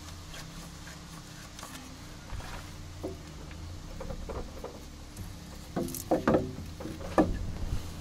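Small clicks and knocks of hands working at a Volvo D12A diesel engine's fuel filter, over a steady low hum, with a few short pitched sounds about six to seven seconds in.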